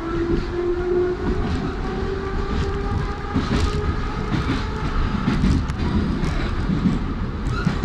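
Kyiv Metro train running across the bridge, heard from inside the carriage: a steady rumble of wheels on rail. A motor whine rises slowly in pitch through the first second or so as the train gathers speed, and a few sharp clicks are scattered through it.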